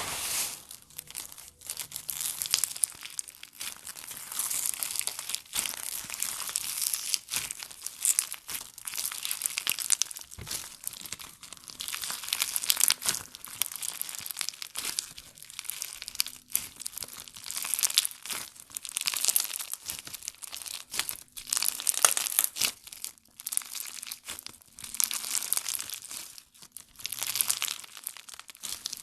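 Slime being squeezed, pressed and stretched by hand, giving a dense crackling and popping that swells and fades every second or two.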